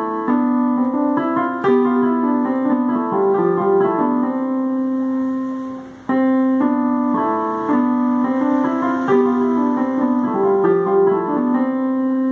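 Electronic keyboard in a piano voice playing a simple beginner's piece: a melody over held lower notes. The same phrase is played twice, with a brief break about six seconds in.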